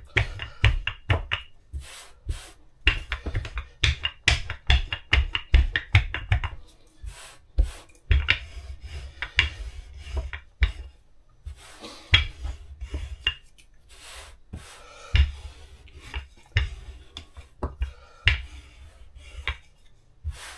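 Wooden rolling pin rolling pastry dough out on a floured worktop: repeated thumps and knocks as it is pushed back and forth, rapid for the first few seconds, then slower, spaced strokes.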